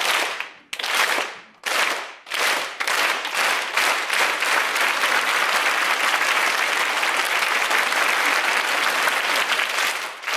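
Theatre audience applauding: first a few short, sharp bursts a little under a second apart, then swelling about three seconds in into steady continuous applause.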